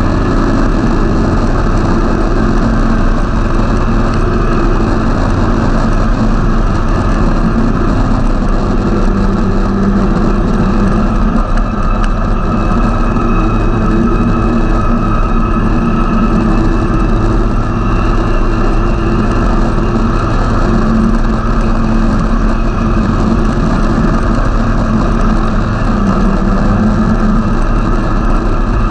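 Snowmobile engine running steadily at trail speed, heard loud and close from the sled itself, its pitch wandering a little with the throttle.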